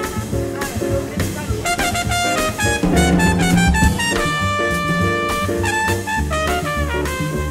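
Jazz background music with brass and drums: busy quick melody notes over a steady beat, with one long held chord about four seconds in.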